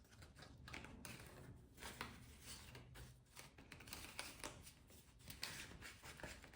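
Faint rustling and light handling of paper bills and cash envelopes: banknotes being pulled out and shuffled.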